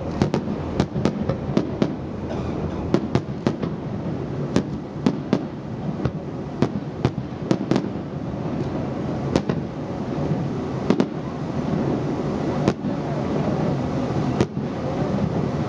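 Fireworks display: aerial shells bursting in many sharp bangs in quick succession, several a second for the first half, then thinning to a few spaced bangs, over a steady background din.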